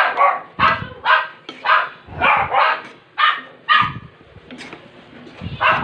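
A dog barking repeatedly, about two barks a second, with a pause of over a second before the barking resumes near the end.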